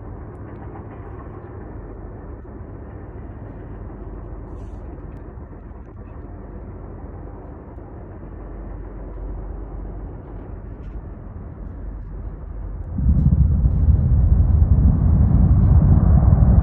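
Mine blast: a steady low background rumble, then about thirteen seconds in a sudden, much louder deep rumble that keeps going.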